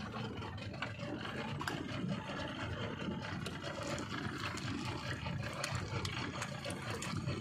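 Steady wash of wind and sea water around a small open boat, with a low outboard-motor rumble underneath and a few faint clicks.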